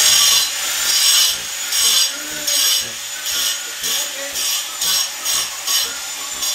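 Rhythmic rasping strokes, about two a second, of something worked back and forth by hand on the masonry, with a faint steady high whine behind.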